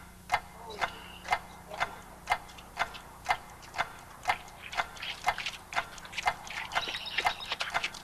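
Steady, even ticking at about two ticks a second, like a clock. Lighter, quicker clicks join in about five seconds in.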